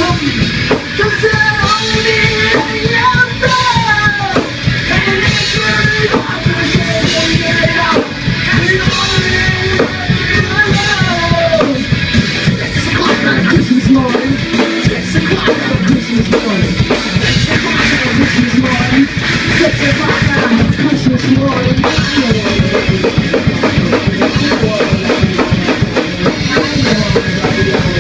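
Loud live rock jam in a small room: a drum kit played hard, with a singer on a microphone over it.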